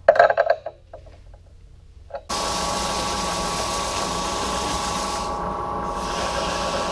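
Powermatic wood lathe starting in suddenly a couple of seconds in and running steadily with a motor whine, while sandpaper is held against the spinning wooden weed pot. The hissing rub of the paper drops out briefly near the end.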